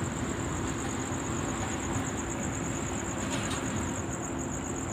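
Steady rumble of road traffic on the bridge and port machinery, with a constant low hum and a continuous high, rapidly pulsing tone above it.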